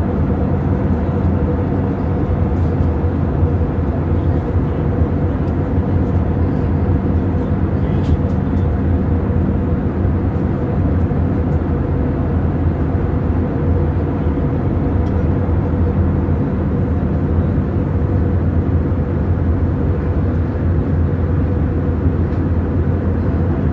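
Steady cabin noise of an Airbus A320neo-family airliner in cruise: a constant low rumble of engines and airflow with a steady hum over it.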